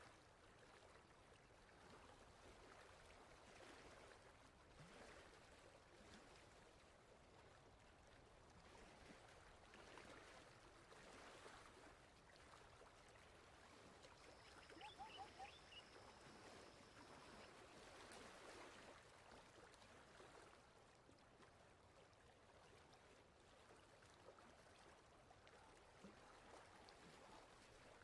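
Near silence: a faint steady hiss like distant running water, with a few brief faint chirps about halfway through.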